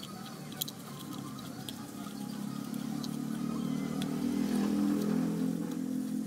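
A small motor humming steadily and growing louder over a few seconds, with scattered light clicks over it.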